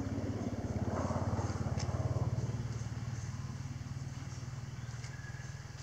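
Low, pulsing engine drone of an unseen motor vehicle passing by. It swells to its loudest about two seconds in and then slowly fades.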